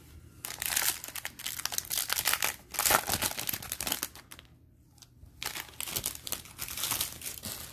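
Foil wrapper of a Bowman Chrome baseball card pack crinkling and tearing as the pack is opened and the cards are pulled out. Two spells of dense crackling, with a short lull about four and a half seconds in.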